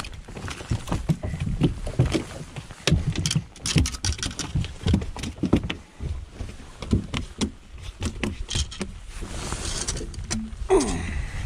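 Irregular knocks, clicks and rustling as a just-landed largemouth bass is handled in a fishing boat, with a short falling squeak near the end.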